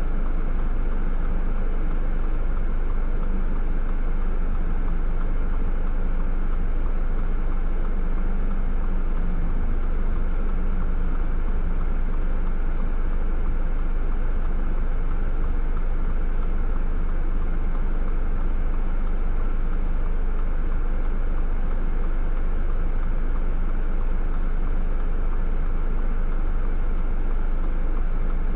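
A car driving at a steady pace: continuous, even road and engine noise.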